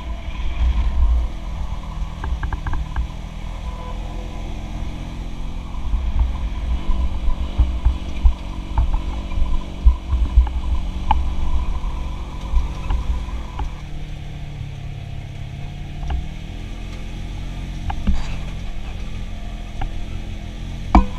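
Polaris General 1000 side-by-side driving on a dirt trail: its DOHC twin-cylinder engine running under a heavy low rumble, with frequent rattles and knocks from the body over the rough ground. The engine pitch shifts about two-thirds of the way through.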